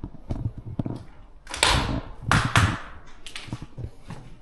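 Irregular footsteps scuffing and crunching over a debris-strewn hard floor, with a few louder scrapes near the middle.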